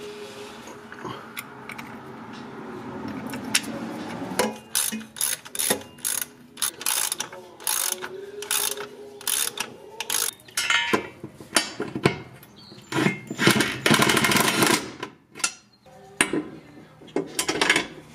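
Hand ratchet wrench clicking in quick bursts of short strokes while bolts on a car's underside are worked. The clicking starts about four seconds in; before that there are only faint handling noises.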